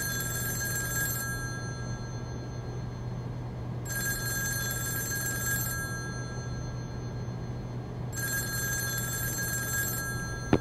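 Bell of an old rotary desk telephone ringing in a regular cadence of about two seconds on and four off. One ring ends about a second in, then two full rings follow. A steady low hum runs underneath.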